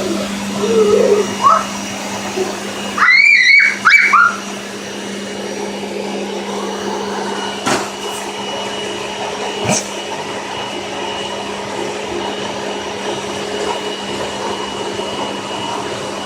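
Household vacuum cleaner running steadily with a constant hum. About three seconds in there is a brief high-pitched voice, and later two short knocks.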